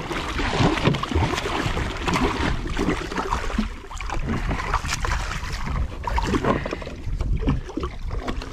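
A hooked shark thrashing at the surface beside a small boat, with irregular splashing and water slapping against the hull.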